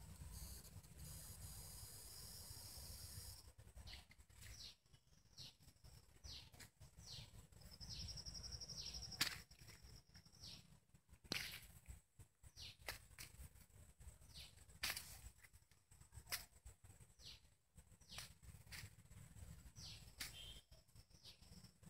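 Faint small-bird chirps: many short, falling calls repeated at irregular intervals, with a brief trill about eight seconds in. A steady high whine fills the first few seconds, and a few soft clicks are scattered through.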